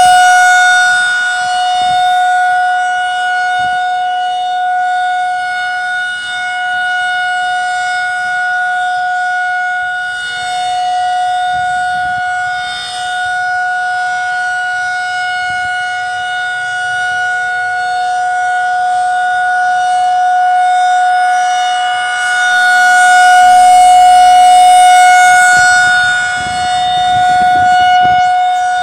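Federal Signal 2001-SRN electromechanical outdoor warning siren sounding a steady single tone during its test. Its loudness swells and fades slowly as the rotating head sweeps past.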